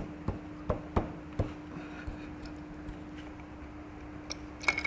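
Light metal clicks and taps of engine parts being handled while the piston and cylinder go onto a TVS Apache RTR 160 4V engine: five quick clicks in the first second and a half, then a couple more near the end, over a steady low hum.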